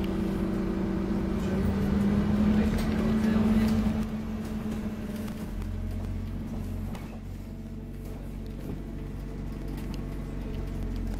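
Scania OmniCity double-decker bus running, heard from the upper deck: a steady engine drone that rises and grows louder, then drops suddenly about four seconds in and settles to a lower hum.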